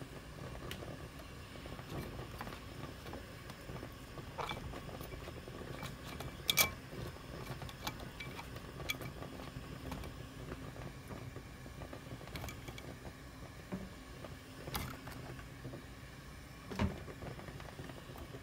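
Eggplants being set into a perforated stainless-steel steamer basket: scattered light knocks and clicks against the metal, the sharpest about six and a half seconds in and another near the end, over a faint steady low hum.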